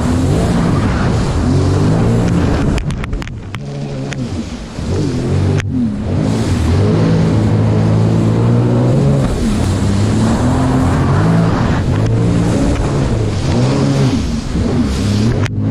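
Sea-Doo jet ski engine revving up and down as the throttle is worked through tight turns, easing off for a moment about three seconds in before picking up again, with water hissing and splashing around the hull and heavy spray near the end as it cuts a sharp turn.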